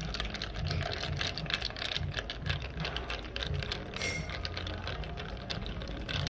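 Carbonated lemonade fizzing in a glass: a dense crackle of fine bubble pops over a low rumble, cutting off suddenly near the end.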